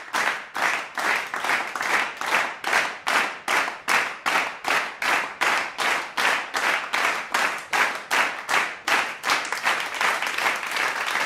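Hands clapping in a steady rhythm, about two and a half claps a second, turning into faster, looser applause near the end.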